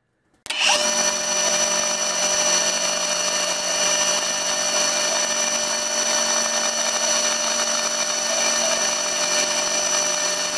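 Vernon metal lathe running at a steady speed, a steady whine made of many fixed tones, as its cutting tool turns down an old socket extension. It starts abruptly about half a second in, after a brief silence.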